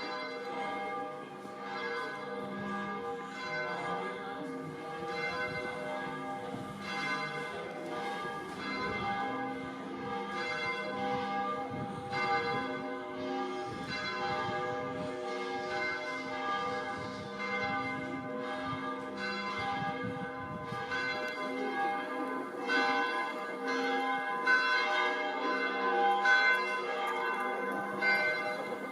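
Church bells ringing a continuous peal: several bells struck over and over, their tones overlapping and ringing on, growing somewhat louder in the last few seconds.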